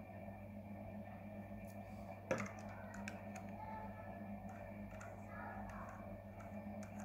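Small clicks and taps of metal e-cigarette atomizer parts being handled and fitted onto the box mod, with one sharper click about two seconds in. A steady low hum runs underneath.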